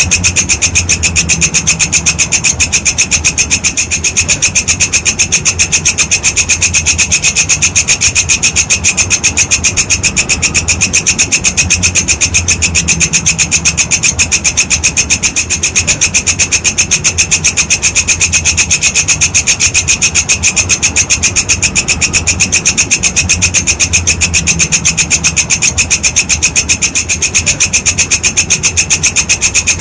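A walang kecek insect stridulating: a continuous high-pitched rasping trill of fast, evenly spaced pulses that does not break.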